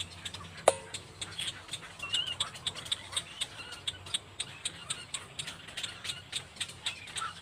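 Birds calling in rapid, high-pitched chirps and ticks, several a second. A sharp click comes less than a second in, over a faint steady low hum.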